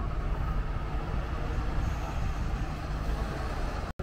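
City bus passing close by, its engine giving a steady low rumble, cut off abruptly just before the end.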